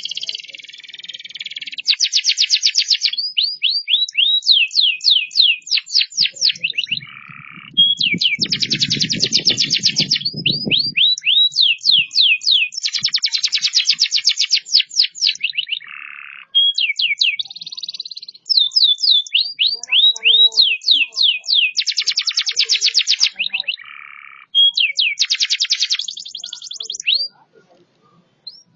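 Canary singing a loud song of rapid trills: fast runs of repeated notes alternating with series of quick downward-sweeping whistles, broken by short pauses. A low muffled noise sounds under the song for a few seconds about a third of the way in.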